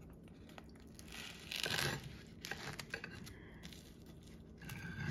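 Knife sawing through a sandwich's toasted bun with a crispy crust, giving a crackly crunch. The loudest stroke comes about two seconds in, with fainter strokes after.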